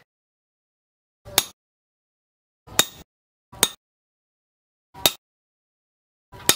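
Five separate hammer strikes on steel, a second or so apart, each a sharp ringing metallic hit: a hammer driving a chisel held on a red-hot knife blade on the anvil.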